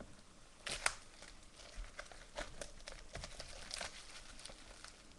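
Wrapper being torn and crumpled off a sealed box of trading cards: irregular crackling and tearing, loudest just under a second in.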